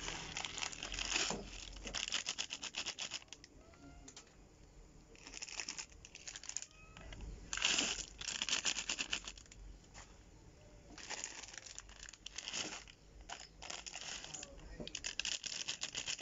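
Plastic instant-noodle packet crinkling and rustling as it is handled, in repeated bursts of a second or two with short quieter gaps between.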